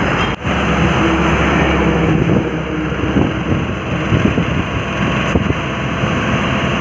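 Heavy diesel truck engine running steadily, with wind noise on the microphone.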